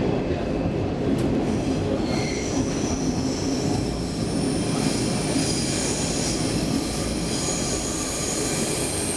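A Stockholm Metro C14 train running, heard from inside the passenger car: a steady low rumble of wheels on rail. A high-pitched wheel squeal sets in about two seconds in and grows stronger from about halfway.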